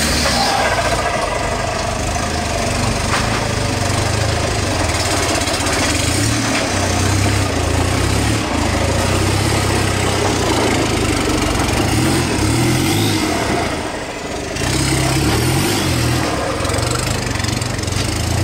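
Off-road 4x4's engine running at low revs as it crawls over a rocky trail. Its note holds fairly steady and dips briefly near the end.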